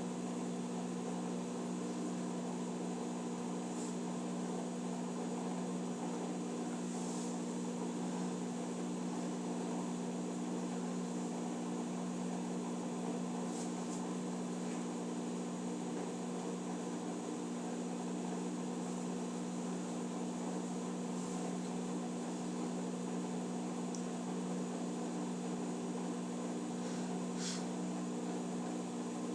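Electrolux Eco Turbo washing machine running with a steady, unchanging hum, with a few faint brief ticks scattered through it.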